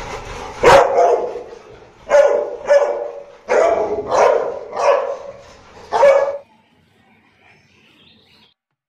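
Bullmastiffs barking: about seven loud barks, spaced irregularly, that stop about six seconds in.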